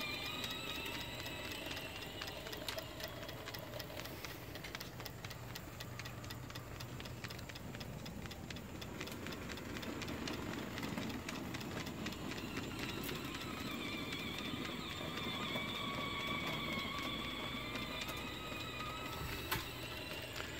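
Stuart Williamson model steam engine running steadily in steam, with a fast, even ticking from the eccentric rod on its eccentric sheave. A wavering background whine rises and falls near the start and again in the second half.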